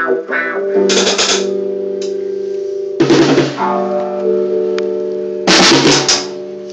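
Rough drum-and-guitar jam: three loud crashes of drum kit and guitar chord, about two and a half seconds apart, each chord left ringing and fading until the next.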